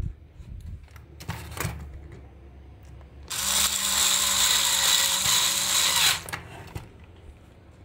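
Cordless electric screwdriver motor running steadily for about three seconds, turning a screw in a plastic toy's casing, then stopping abruptly. A few light clicks of handling come before it.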